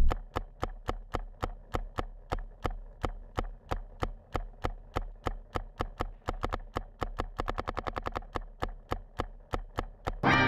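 Paintball marker firing a long, steady string of sharp shots, about four to five a second, coming a little faster around eight seconds in.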